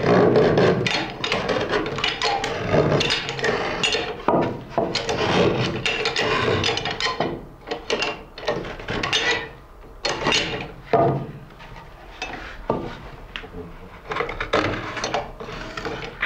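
A hinged stump knife shaving soft poplar wood from the upper rims of a wooden clog: repeated rasping cuts, with a few sharp knocks in the second half.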